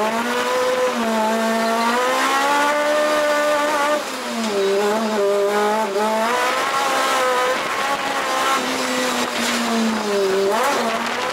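Toyota AE86's carbureted four-cylinder engine running at high revs under load while the car drifts. The revs climb at the start, hold, then dip and pick back up several times as the driver lifts and gets back on the throttle, with tyre noise underneath, heard from inside the cabin.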